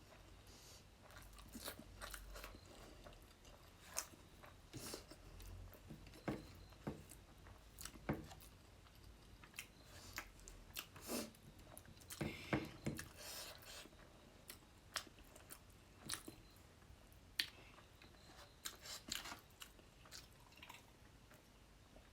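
Close-miked mouth sounds of a person eating fish curry: chewing and biting, with irregular sharp crunchy clicks.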